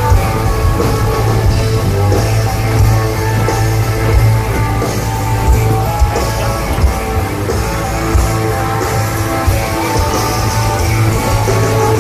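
Live rock music from a festival stage: electric guitar over a heavy bass line and drums, loud and steady.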